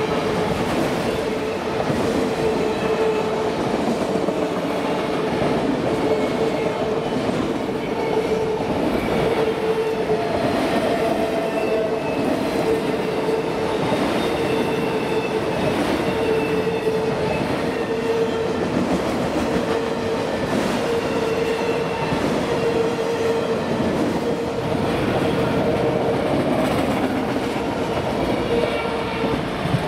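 Freight train cars rolling steadily past, their wheels running over the rails with a humming note that breaks up about every second and a half and fainter high squeals from the wheels.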